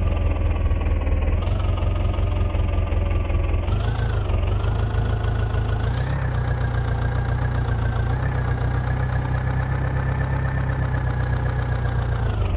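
Heavy diesel engine of a tractor or backhoe loader running steadily, speeding up about four seconds in and again about six seconds in, then holding the higher speed under load until it drops back at the end.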